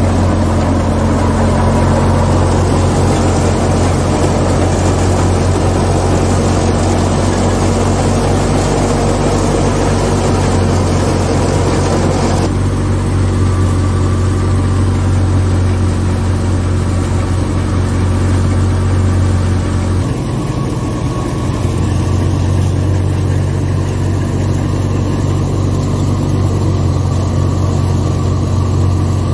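A tractor-driven wheat thresher running at full work: a steady, heavy engine drone under the rushing whir of the threshing drum and blower. The sound thins abruptly about twelve seconds in and shifts again near twenty seconds, but the drone carries on throughout.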